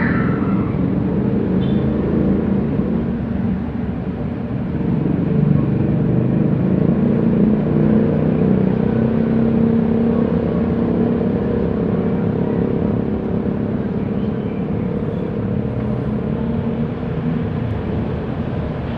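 Jet airliner's engines, a steady low rumble with a faint held hum, swelling about a third of the way in and easing off toward the end as the aircraft passes on approach.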